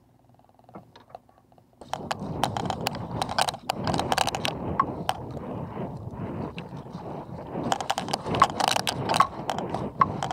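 Choppy water slapping and splashing against a kayak's hull, with irregular sharp knocks. It starts suddenly about two seconds in, after a nearly quiet start.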